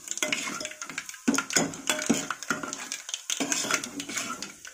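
Metal ladle stirring spices and lentils frying in hot oil in an aluminium pot, with quick repeated scrapes and clinks of metal on metal over a faint sizzle.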